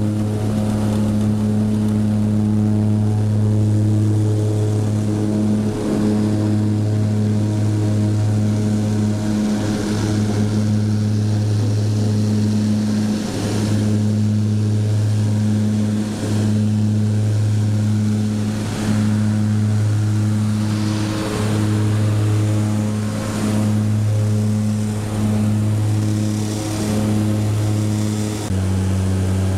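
Propeller airplane's engines and propellers droning steadily, heard from inside the cabin during takeoff and climb-out. The tone drops slightly in pitch near the end.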